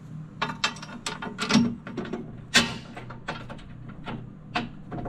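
Irregular metallic clicks and knocks of a steel spacer and bolt being handled and fitted into a lift-kit bracket at a side-by-side's shock mount. The loudest knocks come about one and a half and two and a half seconds in.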